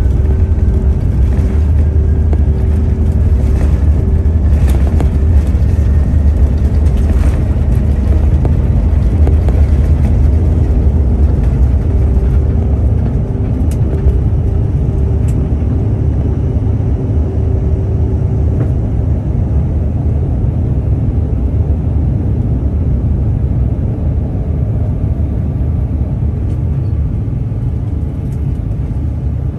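Cabin noise of a CRJ-700 regional jet on its takeoff roll: its two rear-mounted GE CF34 turbofans at takeoff thrust with a faint rising whine, over a heavy rumble and a few knocks from the wheels on the runway. The rumble and a steady hum ease off in the second half as the jet leaves the ground.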